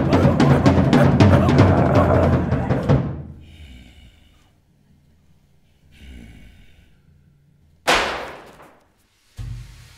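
Loud, dense drumming on a drum kit, heavy in the low drums, which breaks off about three seconds in and fades to a near-quiet stretch. Near the end a single sharp crash rings out and dies away over about a second, followed by a low thump.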